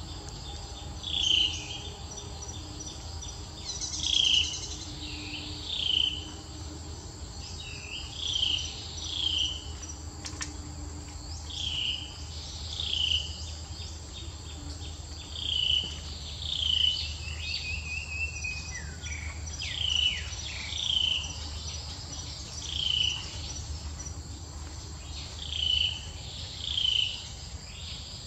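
Wild insect and bird ambience: short chirps repeat about once a second, often in pairs, over a steady high insect drone.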